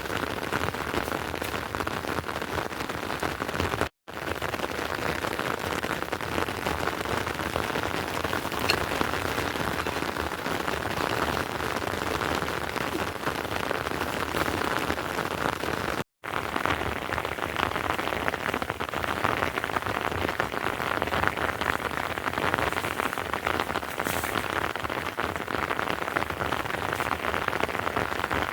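Steady rain falling, a dense even patter, which cuts out for an instant twice.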